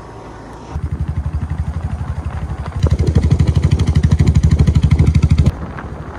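A motorcycle engine running with a rapid, even putter. It starts abruptly, gets louder about halfway through, and cuts off suddenly near the end.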